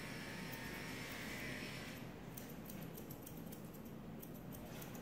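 Grooming shears snipping the hair on a Bichon Frise's muzzle: a run of light, quick clicks, most distinct from about two seconds in, over faint steady room noise.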